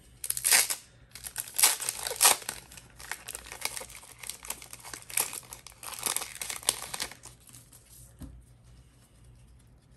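A trading card pack wrapper being torn open and crinkled by hand, loudest in the first couple of seconds and dying away after about seven seconds.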